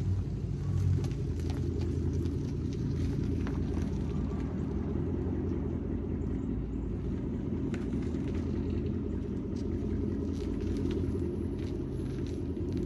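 Dodge Daytona R/T's 5.7 HEMI V8 running, a steady low rumble with road and wind noise.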